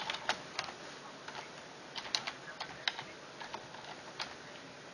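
Typing on a computer keyboard: irregular, scattered key clicks, some louder than others.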